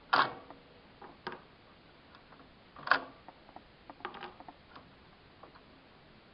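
Sharp plastic clicks and knocks from the print heads and carriage latch of an HP Designjet plotter as the print heads are pulled out: a loud click at the start, another about three seconds in, and smaller clicks around one and four seconds in.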